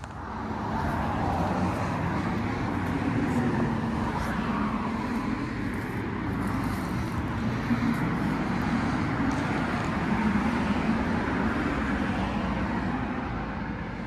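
Residential heat pump outdoor units running: the steady rush of the outdoor fan blowing through the coil, with a low wavering hum underneath, growing louder within the first second.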